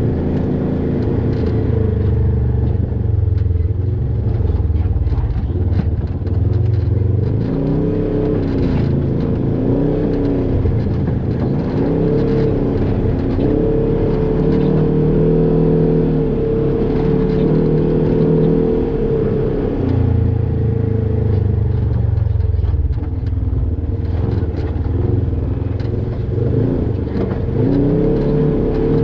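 Polaris RZR XP 1000 side-by-side's parallel-twin engine revving up and down over and over in rock-crawling throttle bursts. The pitch rises and falls with each push of the throttle, over a low steady drone.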